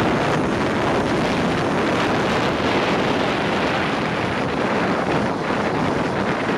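Steady rush of wind over the microphone during a fast zipline ride.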